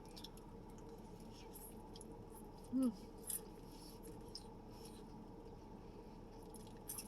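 Faint close-up chewing and mouth sounds of someone eating, small wet clicks and crackles, with a short hummed "mm" about three seconds in.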